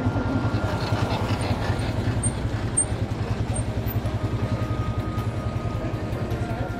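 Motorcycle engine running steadily at low revs, with a quick, even pulse.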